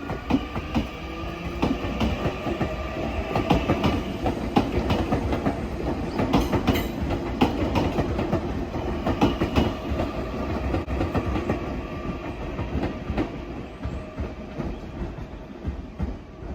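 Nankai electric train running on the Koya line: a dense, irregular clatter of wheels over rail joints, with a steady whine and rumble underneath.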